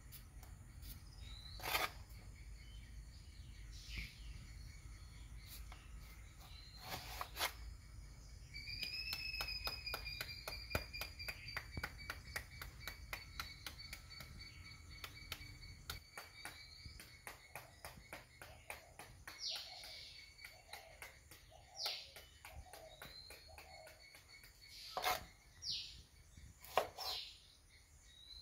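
Kitchen knife cutting young jackfruit on a wooden chopping board, with a few sharp knocks of the blade against the board, the loudest near the start and near the end. Birds chirp in the background, with one long trilling call lasting several seconds about a third of the way in.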